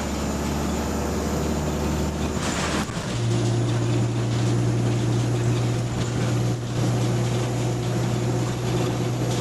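London double-deck bus's diesel engine running, heard from inside the passenger cabin. About two and a half seconds in there is a brief hiss, and just after three seconds the engine note changes to a stronger, steady drone.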